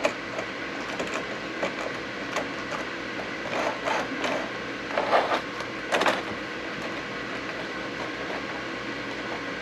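Hornby model train cars being set onto the track by hand: light plastic clicks and knocks of wheels and bodies against the rails, the clearest between about three and a half and six seconds in, over a steady background hum.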